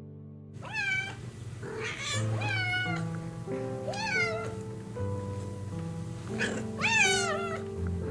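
A cat meowing several times, each call rising then falling in pitch, over background music with held notes.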